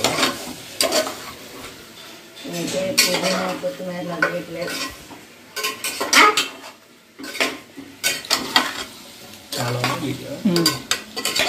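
Metal spoon stirring and scraping chicken pieces in an aluminium pressure cooker, with repeated clinks against the pot and the sizzle of the chicken and onions frying in oil.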